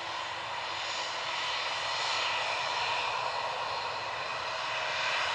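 Ryanair Boeing 737-800's CFM56-7B jet engines running as the airliner rolls along the runway: a steady jet rush with a faint whine, swelling slightly about two seconds in and again near the end.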